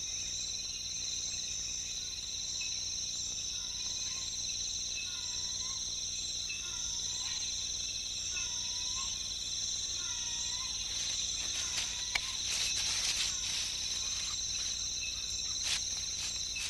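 Rainforest insects trilling steadily at two high pitches. Over them, a short dipping call repeats about every second and a half, from about four seconds in until about twelve seconds.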